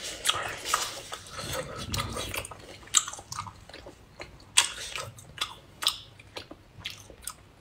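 Close-miked wet eating sounds: chewing and mouth smacks, with sauce-soaked cooked octopus being handled, as a string of short sharp clicks and squelches.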